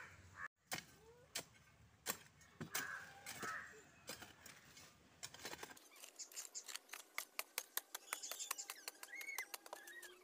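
A metal hoe chopping and scraping into dry red soil: sharp clicks, a few at a time at first, then coming several a second after about six seconds, with birds chirping.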